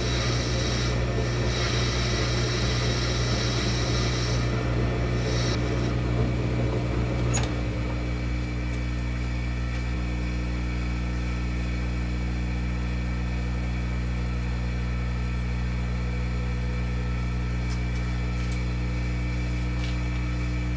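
1941 South Bend lathe running steadily, with a hiss from the tool taking a finishing cut on an HDPE gear blank for the first five seconds or so. After a single click a few seconds later, only the steady hum of the lathe's motor and drive remains.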